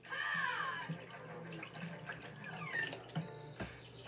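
Broth pouring from a carton's spout into a ceramic baking dish, a running stream splashing into the liquid around a roast.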